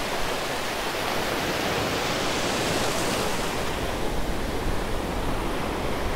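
Ocean surf washing onto the beach as a steady rush of noise, swelling about two to three seconds in. Wind buffets the microphone in the second half.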